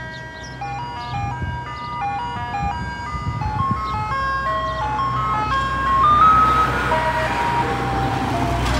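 Ice cream truck playing its chime jingle, a tinkling melody of short notes that grows steadily louder as the truck approaches, with its engine running underneath and louder near the end.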